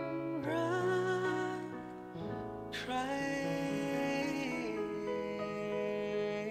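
A man singing a ballad with instrumental backing, holding notes with vibrato.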